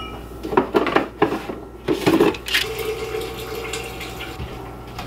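Kitchen cupboard and items being handled: a run of clattering knocks as dishes or containers are taken out, followed by a steady sound with a faint hum.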